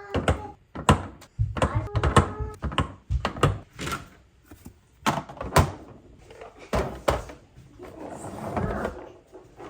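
Irregular series of clunks and knocks from containers and fridge parts being handled and set down, some with a short hollow ring, and a brief rustling stretch near the end.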